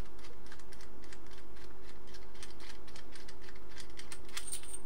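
Small irregular clicks and ticks of a Miniware ES15S electric screwdriver's metal barrel being twisted and unscrewed by hand, with a short high-pitched scrape near the end. A steady faint hum runs underneath.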